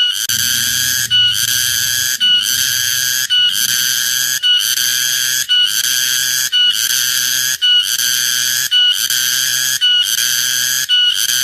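Cicada calling loudly: a shrill, buzzing song in phrases of about a second each, broken by short gaps and repeating evenly, about ten times.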